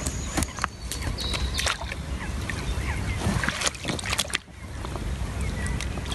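Water sloshing, with knocks and clicks of handling, as a caught fish is released back into the water, over a steady low rumble.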